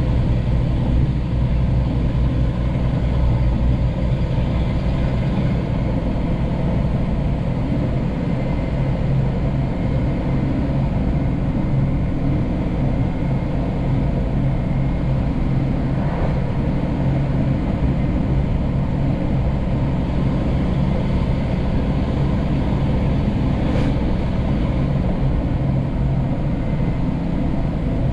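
Scania P380 dump truck's diesel engine running steadily at an even pitch.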